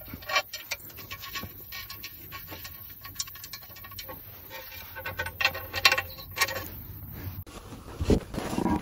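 Light metallic clinks, taps and scrapes as a slightly rusty steel sump baffle plate is handled and seated back inside the engine sump, some clinks ringing briefly; a few dull knocks near the end.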